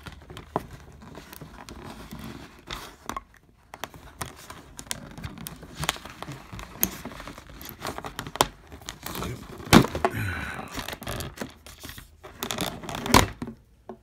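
Cardboard and plastic packaging rustling and crinkling as hands work wire twist-ties loose, with irregular sharp clicks and snaps. The loudest snaps come about ten seconds in and near the end.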